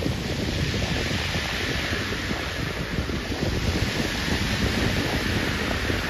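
Ocean surf breaking and washing up the beach in a steady rush, with wind buffeting the microphone.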